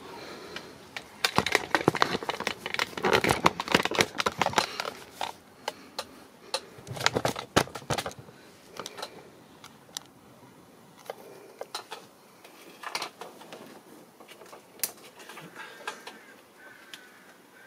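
Hands working in an engine bay: a fast run of clicks, knocks and rattles as plastic and metal parts such as hoses, connectors and brackets are pulled loose. It is dense for the first several seconds, then thins to scattered single clicks.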